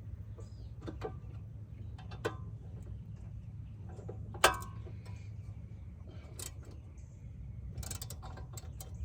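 Metal hand tools clicking and clinking against a rear brake caliper bracket as its bolts are tightened, with one loud ringing metallic clank about four and a half seconds in and a run of quick clicks near the end.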